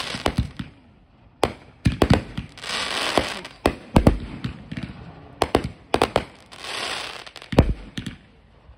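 Aerial fireworks bursting overhead: a string of sharp bangs, several coming in quick pairs, with two spells of dense crackling between them.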